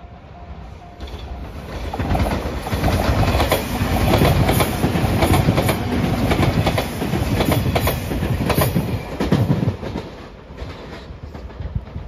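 A JR Shikoku 8000 series Anpanman-liveried five-car limited express train passing close by, with wheels clicking over rail joints. The sound builds over the first two seconds and fades from about ten seconds in. A level-crossing bell rings in even pulses at the start and is then drowned out.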